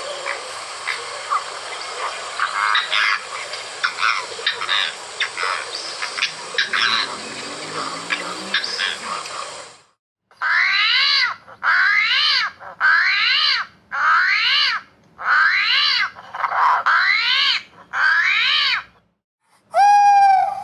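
Animal calls: for about ten seconds a dense chorus of short chirps and clicks over a hiss, then, after a sudden break, eight calls about a second apart, each rising and then falling in pitch.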